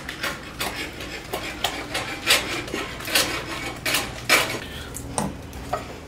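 A spatula stirring thick, creamy risotto in a stainless steel pressure-cooker pot, scraping and knocking irregularly against the pot.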